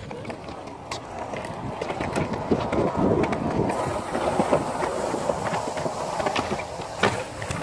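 Skateboard wheels rolling over a concrete bowl: a steady rough rumble with many small clicks. There is one sharper knock near the end.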